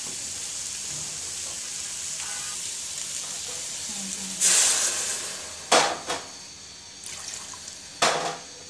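Spiced vegetables sizzling in mustard oil in a pan. About four and a half seconds in, water is poured in and sets off a sudden loud hiss that dies away, followed by a few sharp knocks against the pot.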